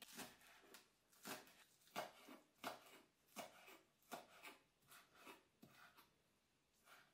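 Kitchen knife slicing green onions on a wooden cutting board: about a dozen short, crisp cuts at a little over one a second, each ending as the blade meets the wood.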